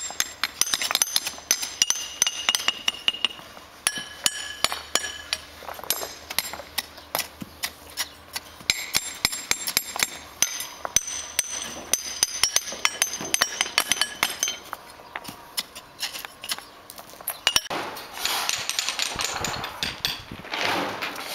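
A paver's hammer tapping cobblestones down into a sand bed, with sharp stone-and-metal clinks in quick, irregular succession.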